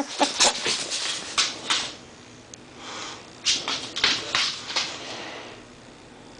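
Two bulldogs moving about and snuffling at a door: a series of short scratchy clicks and rustles in two spells, with a lull around two to three seconds in.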